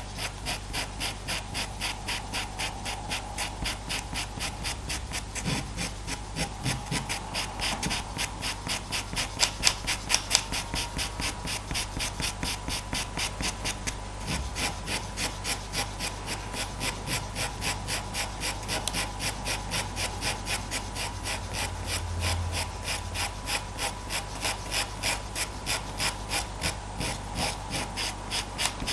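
Faber-Castell Pitt pastel pencil scratching across Pastelmat paper in quick short strokes, about three a second, laying down a base layer of fur.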